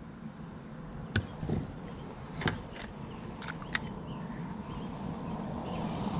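A handful of light clicks and knocks, about five spread over the first four seconds, over a low steady rumble that slowly grows louder.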